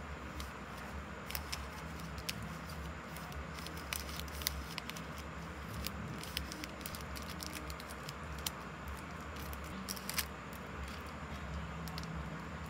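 Stickers and packaging being handled: scattered light clicks, taps and rustles, several to a second and irregular, over a steady low hum.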